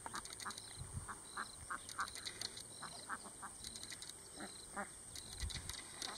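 Domestic ducks quacking: a scatter of short calls from several birds, repeated every half second or so.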